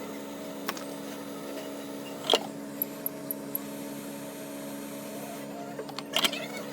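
Hot air rework station's blower running with a steady whir during BGA chip reballing, with a few sharp clicks of tools. The loudest click comes about two seconds in, and a short cluster of clicks comes near the end.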